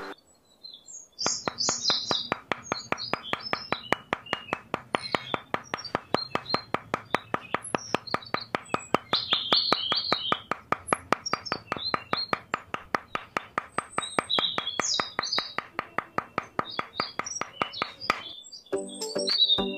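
Birds chirping and tweeting over a steady rapid clicking, about four or five clicks a second, which starts about a second in and stops shortly before the end.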